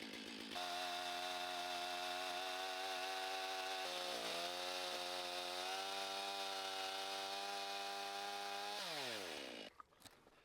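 Stihl MS 500i fuel-injected chainsaw with a 24-inch bar running at full throttle through a log, its pitch dipping briefly about four seconds in as the cut loads it. Near the end the throttle is released and the revs fall away.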